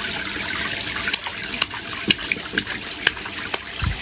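Bathwater in a plastic baby bathtub trickling and splashing as a toddler is bathed and her wet hair is rubbed, with small irregular splashes and drips about every half second.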